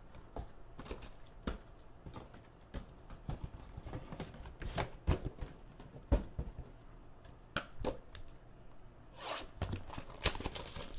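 Cardboard trading-card mini boxes being lifted out of a hobby box and set down on a table, with scattered taps and knocks. About nine seconds in comes a stretch of rustling and tearing as the wrapping of one mini box is opened.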